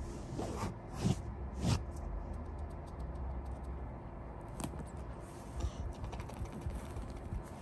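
Soft rustling and scattered small clicks of a British shorthair kitten moving against and mouthing sheer fabric, with a few sharper clicks about a second in, near two seconds and past the middle, over a low steady hum.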